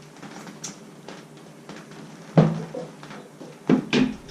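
Hard objects being handled and set down: one loud sharp knock about two and a half seconds in, then two more in quick succession near the end, over a low steady hum.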